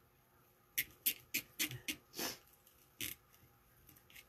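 Burlap petals being handled and pulled into a wreath flower board: a quick run of short, crisp rustles and scratches starting about a second in and stopping around three seconds.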